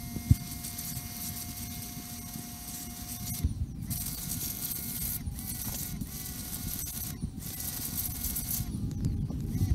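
Electric pressure washer running, its motor-pump giving a steady whine over the hiss of the water jet spraying a bicycle. The sound breaks off briefly about four times.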